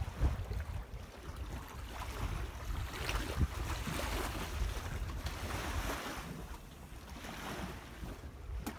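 Wind buffeting the microphone with a low rumble that eases near the end, over small lake waves lapping in a hiss that swells and fades several times. A single sharp click comes just before the end.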